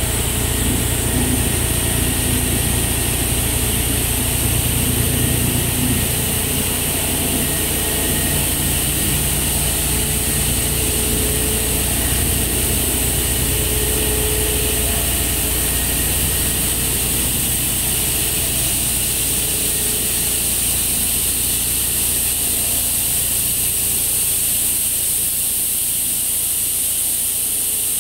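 Meltblown nonwoven fabric production line running: a steady low machine hum under a constant high hiss, the low hum easing a little about six seconds in.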